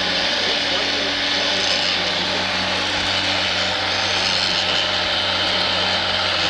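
Scale RC construction machines at work: a steady whir of small electric motors and hydraulic pumps, with a constant hum and a high gear whine.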